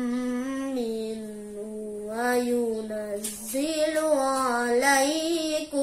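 A boy's voice chanting Quran recitation in the melodic tilawah style, holding long ornamented notes. There is a short break about three and a half seconds in, and the pitch rises after it.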